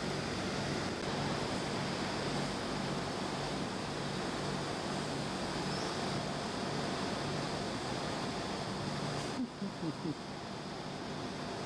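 Air conditioner unit running with a steady rushing hiss and a low hum; the hiss abruptly turns duller and the level dips briefly about nine seconds in.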